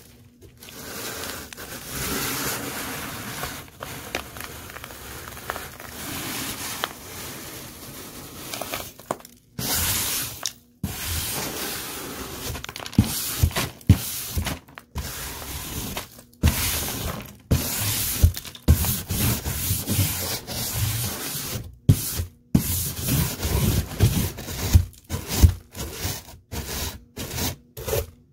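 Dry mixed debris (dirt, confetti, grit and small gems) being rubbed and scraped, a scratchy crunching with no motor sound. It runs unbroken for about nine seconds, then comes in short stop-start stretches with brief silent gaps, heavier toward the end.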